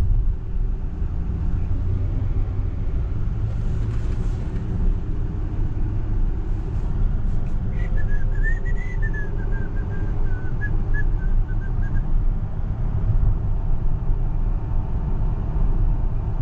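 Steady road and tyre rumble inside the cabin of a Tesla Model X 100D electric SUV as it gathers speed, with a faint whine rising in pitch. About eight seconds in, a wavering whistle-like tone sounds for about four seconds.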